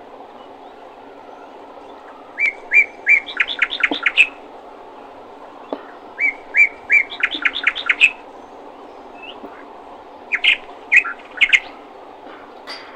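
A songbird singing the same short phrase three times: a few spaced chirps that speed up into a quick run of notes. Underneath is a steady low background noise.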